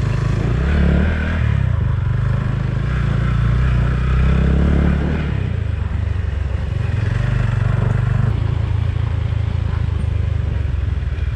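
Motorcycle engine running, its pitch rising and falling as the throttle is opened and eased.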